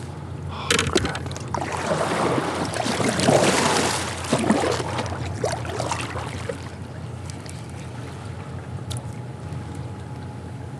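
Water splashing and rushing around a kayak moving on river current, swelling to its loudest about three to four seconds in and then settling to a steady wash. A few sharp knocks come about a second in.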